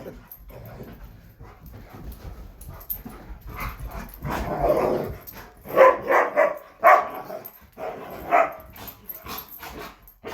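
Two puppies play-fighting: scattered short yips and barks with scuffling, the loudest sharp ones coming in a cluster about six to seven seconds in and again near eight and a half seconds.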